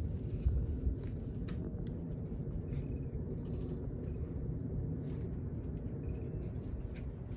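Steady wind rumble on the microphone, with scattered small rustles and twig clicks as a toy poodle noses and pulls at a small conifer's branches.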